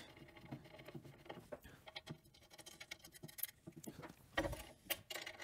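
Faint small clicks and scratches of a metal screw being turned into the table-tilt stop of a band saw, with a soft knock about four and a half seconds in.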